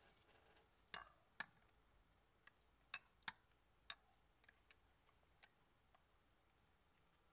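A spoon clinking against a glass jar of chia pudding: about ten light, sharp clicks at irregular intervals, the loudest about a second in.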